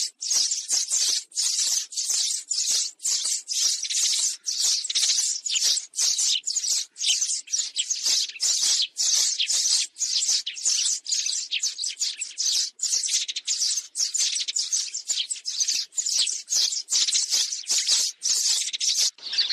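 Sparrows chirping in a fast, dense, unbroken run of short chirps, about two bursts a second. It is a sparrow lure call of the kind used to call a flock in.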